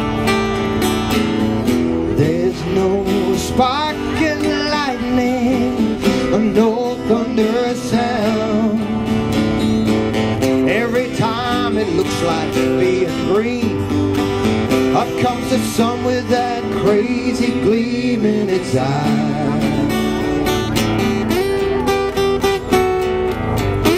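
Live acoustic music: two acoustic guitars strumming chords, with a wavering lead melody over them.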